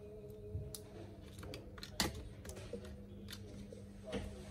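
Small clicks and taps of a screwdriver working at the power-switch board on a laptop's metal keyboard plate, with a sharper click about two seconds in and another near the end.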